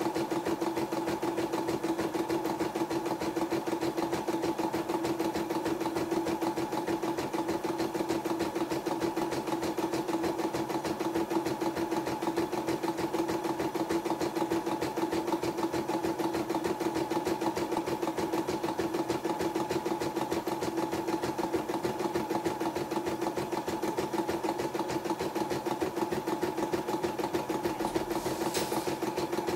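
YOKO portable computerized embroidery machine stitching out a design: a steady, fast run of needle strokes with an even pitch that does not change.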